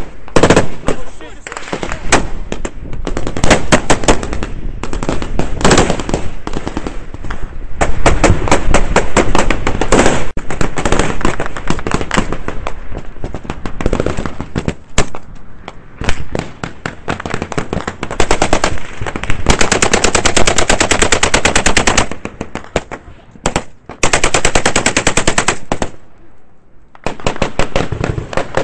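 Close-range small-arms fire: rapid automatic bursts mixed with single shots, with a long unbroken burst about twenty seconds in.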